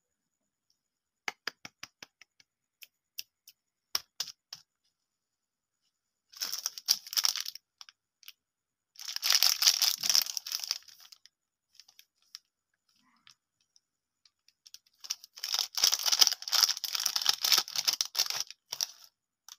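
Metallised plastic wrapper of a Dream chocolate sandwich biscuit being handled and torn open: scattered crackles in the first few seconds, then three bouts of crinkling and tearing, the last lasting about four seconds.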